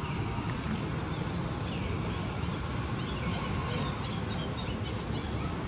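Several faint high-pitched squeaky animal calls, short and curving up and down, in the middle, over a steady rumbling outdoor noise.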